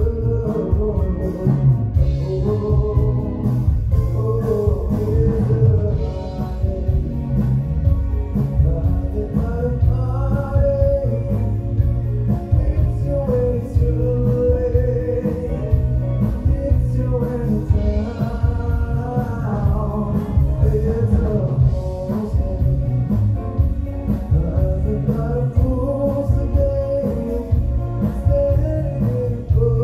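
Live rock band playing: a male lead singer sings a sustained, gliding melody over electric guitars and drums.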